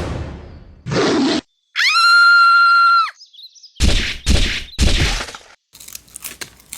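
A string of cartoon-style sound effects: a hit that fades away, a short rushing burst, a steady high beep held for over a second, then three or four loud crashing bursts and some crackling near the end.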